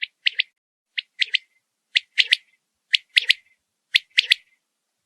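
Quail calling: a three-note phrase, one short note then two quick ones, repeated five times at about one-second intervals.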